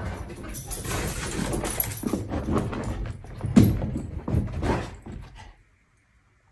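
A retriever scrambling out from under a bed onto carpet: rustling and scraping, with several louder scuffs from about two seconds in, stopping abruptly near the end.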